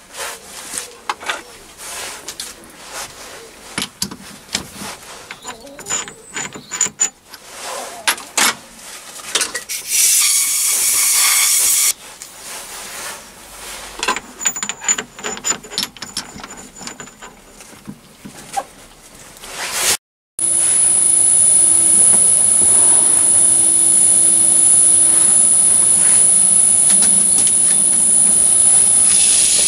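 Clicks and knocks of metal parts being handled at a lathe, with a brief loud hiss about ten seconds in. After a short break about two-thirds of the way through, the Myford ML7 lathe runs steadily with a high-pitched whine.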